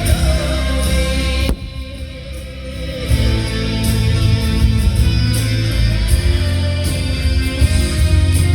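Loud rock music led by electric guitar over a heavy bass line.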